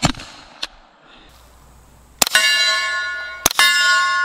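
Suppressed CZ Scorpion Micro 9mm firing subsonic rounds through a SilencerCo Hybrid 46: each short, sharp shot is followed almost at once by the clang of the bullet striking a steel plate, which rings on with a clear bell-like tone. There are shots at the start, about two seconds in and about three and a half seconds in. The plate strike is louder than the gun itself.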